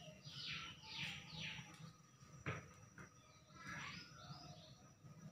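Faint bird calls: three quick falling chirps, then a short rasping note a few seconds later, with a single sharp click between them over a low steady hum.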